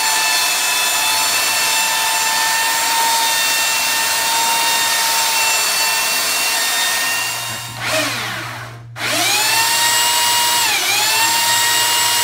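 Ryobi electric power tools working a walnut countertop edge. A steady, high motor whine runs for the first eight seconds or so and then cuts off. Just after nine seconds a Ryobi belt sander starts up, its pitch rising as it spins up, then dips briefly as it bogs under load about two seconds later.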